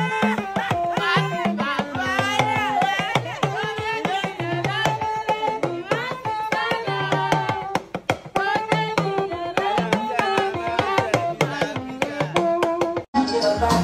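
Background music: a song with a sung melody over a steady drum beat.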